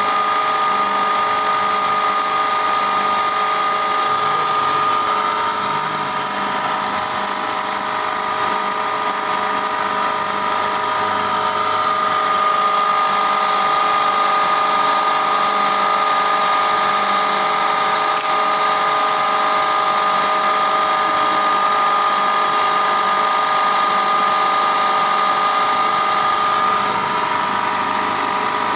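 Milling machine running with a small end mill cutting a lengthwise groove into a metal shaft: a steady machining whine with several held tones, its highest part dropping away about 12 seconds in and coming back near the end.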